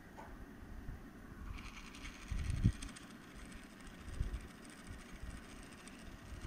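Quartz clock mechanism's stepping motor, driven by a multivibrator circuit as a brushless motor, spinning its gear train with a fast, high whir that starts about a second and a half in. A few low thumps of handling come with it.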